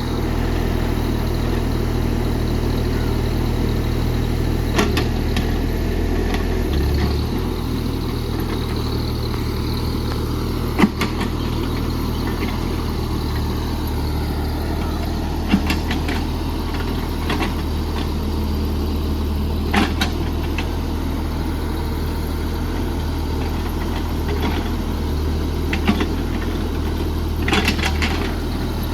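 JCB JS30 Plus mini excavator's diesel engine running steadily as the machine works, its note shifting slightly about a quarter of the way in. About half a dozen short sharp knocks are heard from the working machine.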